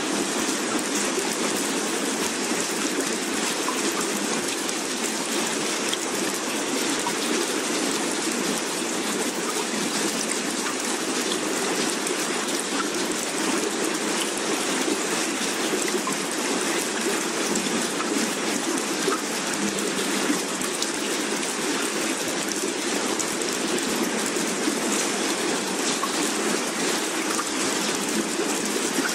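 Steady, even rushing hiss like rain, with no rise and fall. It is the constant noise bed of a subliminal affirmation track.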